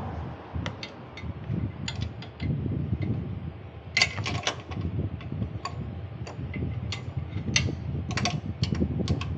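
Irregular metallic clicks and clinks of hand tools working on the car's front suspension, with a cluster of them about four seconds in, over a steady low rumble.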